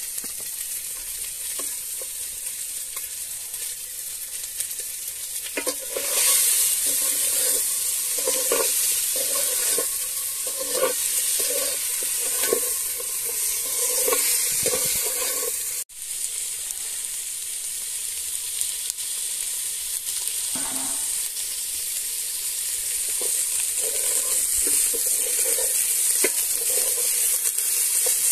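Small fish frying in oil in a metal pot over a wood fire: a steady sizzling hiss. From about six seconds in to about sixteen, a metal ladle stirs and scrapes the pot in repeated strokes, and the sound breaks off for a moment near the middle before the sizzling goes on.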